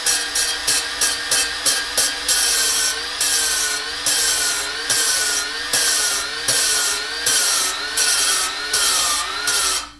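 Drill spinning a valve against its seat in a 5.3 LS cylinder head to lap it with fine lapping compound: a wavering motor whine under the gritty rasp of the valve face grinding on the seat. The rasp comes in pulses, quick at first, then about once a second, and the drill stops just before the end.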